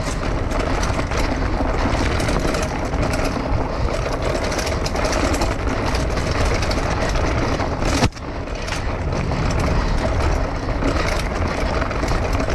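Mountain bike ridden down a rooty dirt forest trail: a steady rough rumble with constant rattling and clicking as the bike and camera shake over roots, and one sharp knock about eight seconds in.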